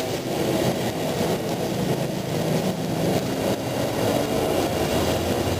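Steady roar of a stove's gas burner under a large pot of boiling water, with a faint low hum beneath it.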